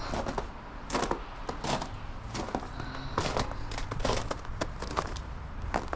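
Footsteps crunching on snow and ice, about two steps a second, each a short sharp crunch, over a low steady rumble.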